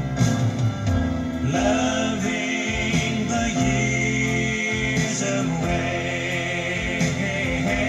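Love ballad playing, a stretch between sung lines.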